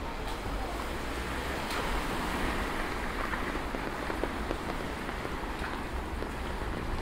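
Steady rain falling on a wet city street, with scattered single drops ticking close by. The hiss grows a little louder about two seconds in.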